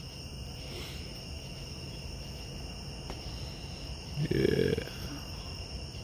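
Crickets chirping steadily in several high pitches, with a brief, louder low sound lasting about half a second about four seconds in.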